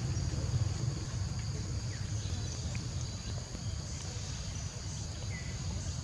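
Insects droning steadily in a high-pitched, even trill, over a low rumble, with a few faint short chirps.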